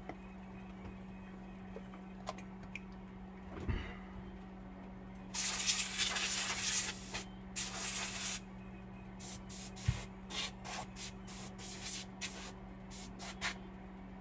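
Hissing bursts like a spray: one lasting about two seconds, a shorter one, then a run of quick short hisses, over a steady low hum, with a soft knock a few seconds in.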